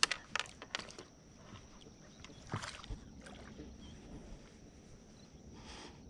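Several quick sharp clicks in the first second, then scattered handling and rustling noises, as fishing line is snipped with a small line cutter to free a hooked catfish. A faint steady high hiss runs underneath.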